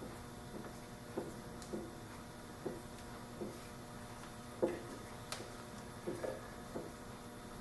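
Soft, irregular knocks and clicks of metal lathe parts being handled and fitted, about one or two a second, one louder knock a little past halfway.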